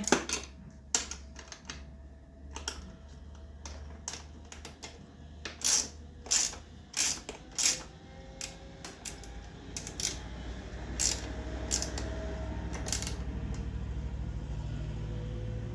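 Irregular sharp metallic clicks and clinks of a hand wrench and hardware working on bolts and nuts. A low steady hum comes in about nine seconds in.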